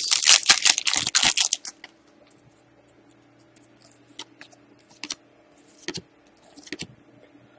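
Foil trading-card pack torn open and crinkled for about a second and a half, then the cards handled with a few soft scattered clicks and rustles.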